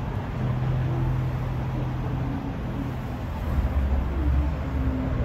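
Street noise from a motor vehicle running close by: a steady low engine hum, with a deeper rumble swelling about three and a half seconds in.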